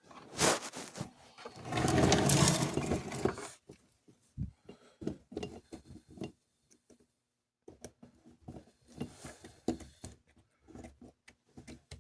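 Small parts and tools being handled while a model locomotive's motor truck is reassembled: scattered light clicks and taps, with a louder rough scraping rustle about two seconds in.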